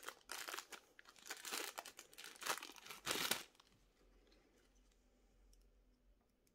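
Plastic figure packaging crinkling as it is handled, in several rustling bursts over the first three and a half seconds, then only faint handling.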